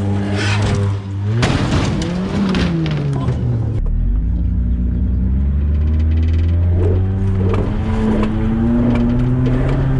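A car engine running, its pitch falling and then rising slowly, with a clatter of knocks about a second in.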